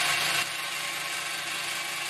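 Homemade benchtop drill press running steadily. It drops a little in level about half a second in, then carries on as an even whir with the bit spinning free, clear of the steel tube.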